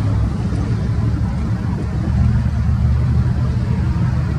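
Diesel locomotive engine of a Union Pacific local freight train running with a steady low rumble.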